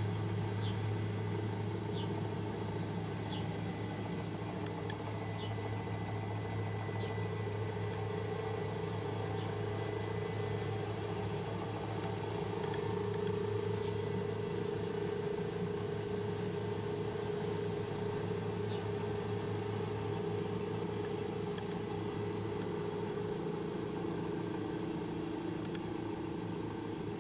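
Helicopter engine and rotors droning steadily, heard inside the cabin in flight: a constant deep hum with a fainter higher tone above it, and a few faint clicks.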